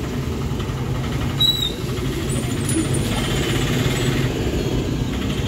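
A motor vehicle's engine idling steadily close by, a low rapid chugging.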